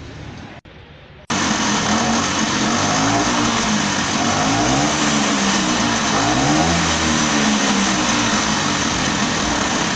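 Bajaj Chetak scooter engine running and being revved up and down several times, with its pitch rising and falling; it comes in suddenly about a second in. It is the engine being test-run after repair.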